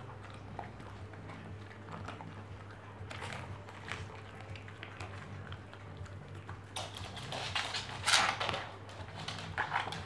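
A Cavalier King Charles Spaniel chewing and gnawing on a flat chew, making irregular crackly crunching sounds that grow louder and busier about seven seconds in.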